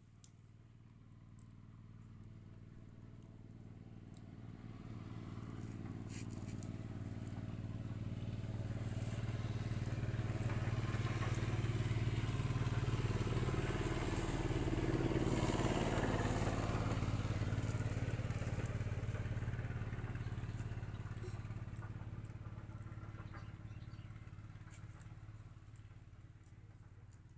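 A motor vehicle engine passing by, growing steadily louder for about twelve seconds, then fading away again.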